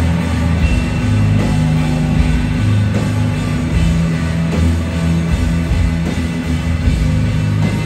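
A live instrumental post-rock band playing loud: electric guitars, bass and drums, with held low notes underneath and drum hits throughout.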